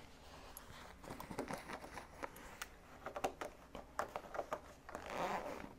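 Faint rustling of fabric with scattered small clicks and taps as the zipper bag is handled and its zipper is slid open by hand, with a short rasp near the end.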